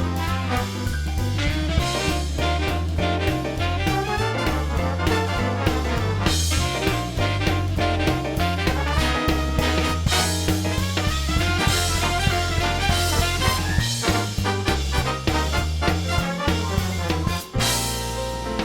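Background music: up-tempo swing jazz with brass and a walking bass line.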